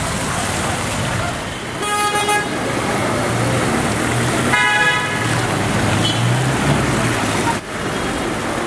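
Street traffic on a wet road: a steady wash of engines and tyres, with a vehicle horn tooting briefly about two seconds in and again about four and a half seconds in.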